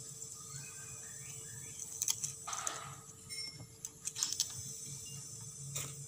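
A few sharp clicks from hands working the brass manifold gauge valve and hose fitting during refrigerant charging, with a short hiss about two and a half seconds in. Underneath, the steady low hum of the running refrigerator compressor.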